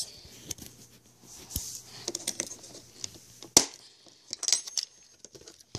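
Plastic tackle box being handled and opened to its other side: scattered small clicks and rattles of plastic and loose tackle, with one sharp click about three and a half seconds in.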